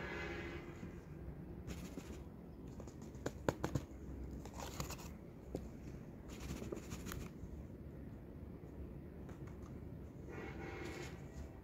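Fingers scratching and rustling through dry potting mix in a plastic tub, with paper rustling. Three sharp clicks come about three and a half seconds in.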